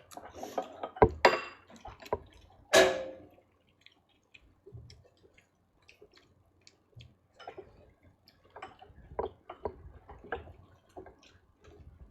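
Tableware at a meal: scattered clinks and knocks of dishes, glasses and cutlery. There is a sharp knock about a second in and a louder burst near three seconds, then a quieter stretch, then more light clatter.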